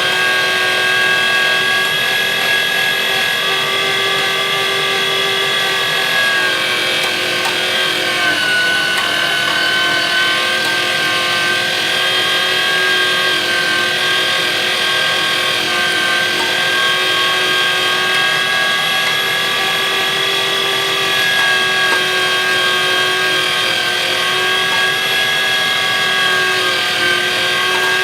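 Weston #12 electric meat grinder's 1-horsepower, 750-watt motor running steadily with a whine as it grinds venison through the coarse plate. Its pitch sags slightly about eight seconds in.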